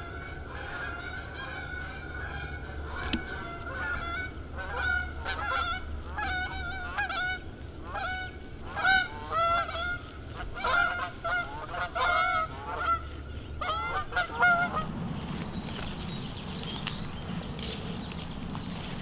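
A flock of geese honking, many calls overlapping and wavering in pitch, cutting off about fifteen seconds in.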